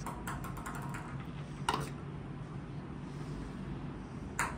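Small ball bouncing and rolling along a glass tabletop: a quick run of clicks just after the start, one sharp click a little before halfway, and another run of quickening clicks near the end.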